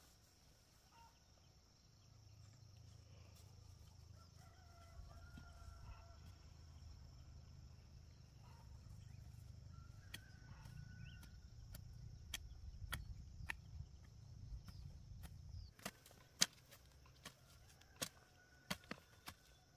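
Faint rural ambience: a rooster crowing at a distance over a steady high-pitched tone and a low rumble. From about twelve seconds in, a series of sharp knocks sets in, irregular and growing louder near the end.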